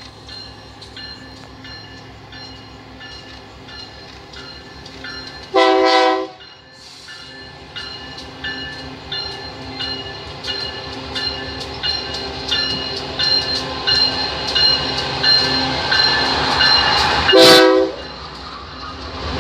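Diesel freight train approaching, with steady clicking of wheels over the rail about twice a second that grows louder, and the locomotive's horn sounded in two short blasts, one about six seconds in and one near the end.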